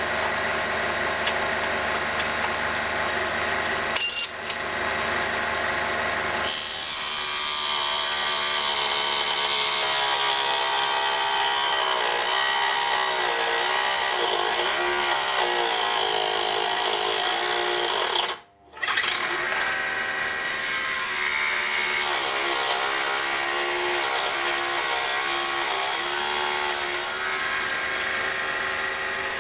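Homemade table saw with a quarter-horsepower three-phase motor running and cutting wood. The motor's pitch wavers and sags as the blade is loaded. The owner takes this for a dull blade and a motor that may not be powerful enough. The sound drops out briefly about two-thirds of the way through.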